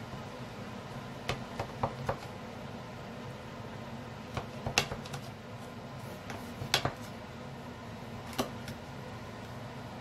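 A kitchen knife slicing through rolls of filo pastry in a metal baking pan, its blade clicking and tapping against the pan in scattered sharp knocks, a few at a time. A steady low hum runs underneath.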